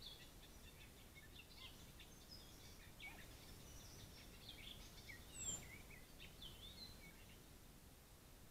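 Faint songbirds chirping and warbling at dusk over a steady hiss, many short high calls overlapping, with one brief louder noise about five and a half seconds in.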